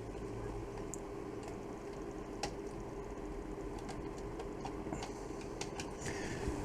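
Scattered light clicks of buttons being pressed on the Pfaff Creative 1471 sewing machine's control panel, a few irregular presses over a faint steady hum.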